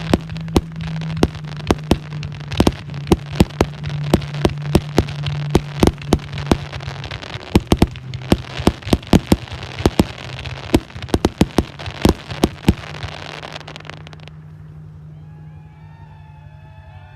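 Fireworks going off: a rapid string of sharp bangs over continuous crackling, which thins out and stops about fourteen seconds in. A few faint wavering whistles follow near the end.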